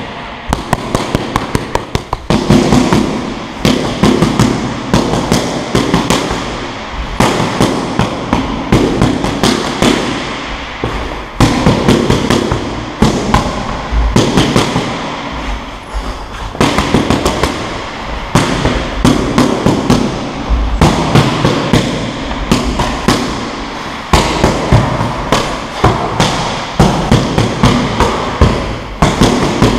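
Boxing gloves smacking into focus mitts in rapid flurries: runs of sharp smacks in quick succession, broken by short pauses between combinations.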